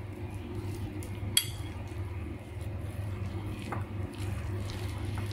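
Spoon stirring shredded chicken filling in a ceramic bowl, clinking and scraping against the bowl: one sharp ringing clink about a second and a half in and a couple of fainter taps later, over a steady low hum.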